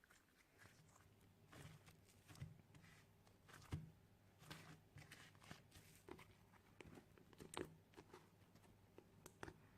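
Faint, irregular sticky clicks and crackles of homemade slime being squished and stretched by hand.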